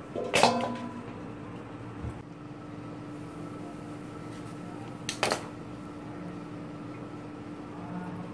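Steel bowl clattering against a stainless steel sink about half a second in, ringing briefly, then a second, shorter metal clatter about five seconds in, over a steady low hum.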